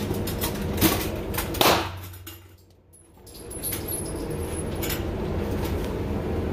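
Gunshots from other shooters on an indoor firing range: two sharp reports a little under a second apart, about a second in, the second louder and followed by a fading echo.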